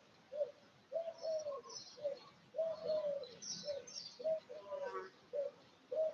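A dove cooing over and over in a short-then-long rhythm, each long coo arching slightly in pitch, with small birds giving brief high chirps above it.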